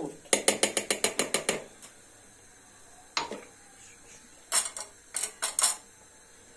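Kitchen utensil clinking against a glass and bowl as a tea glass of yogurt is added to the dessert batter: a fast run of about ten clicks in the first second and a half, a single knock around the middle, then a few more clicks near the end.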